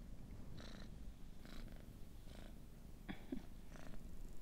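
Tabby cat purring, the purr swelling in pulses a little more than once a second.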